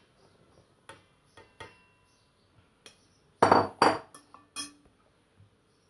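A plastic bowl knocking and clinking against a stainless steel stand-mixer bowl as flour is tipped in: a few light taps, then two loud knocks about three and a half seconds in, and a few lighter clinks with a short metallic ring.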